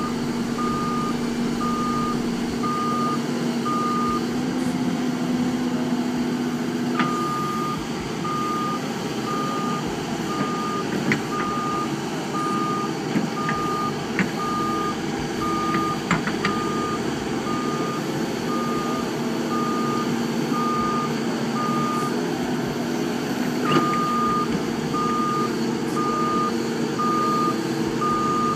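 A heavy machine's reversing alarm beeping steadily at about one and a half beeps a second, over its engine running. The beeping stops for a few seconds near the start and pauses briefly again later. A few sharp knocks sound in between.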